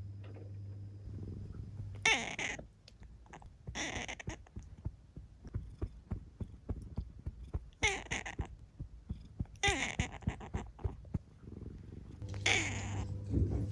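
Domestic cat meowing five times in short calls, each falling in pitch at its end, with rapid purring pulses in between.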